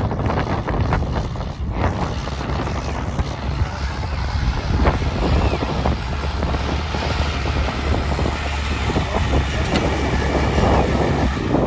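Tractor engine running steadily under load while pulling a disc harrow through dry, cloddy soil, with the noise of the discs working the ground.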